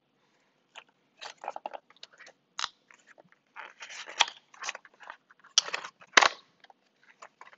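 Packaging being opened by hand: irregular crinkling and crackling with small clicks, coming in uneven bursts, with two louder crackles about four and six seconds in.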